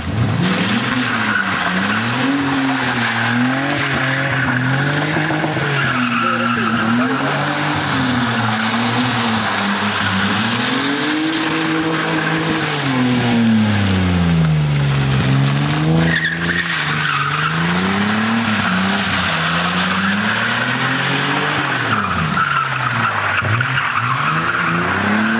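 Opel Omega sedan drifting, its rear tyres squealing continuously in a long skid while the engine revs rise and fall every couple of seconds as the throttle is worked.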